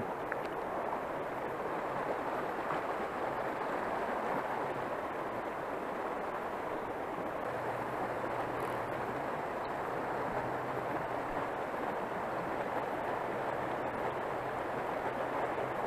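Steady rushing of flowing river water. A faint low hum comes in about halfway through.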